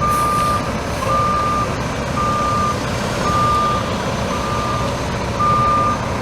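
Truck's reversing alarm beeping, one steady tone about once a second, six beeps, over the truck's running diesel engine.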